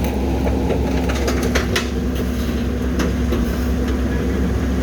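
Heil garbage truck's engine running steadily with a low drone and a held hum, with a few sharp knocks in the middle.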